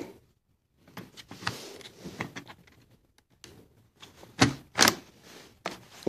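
Netbook battery pack being slid into its bay on the underside of an Acer Aspire One: light plastic rubbing and small clicks, then two sharp clicks about half a second apart as it latches into place.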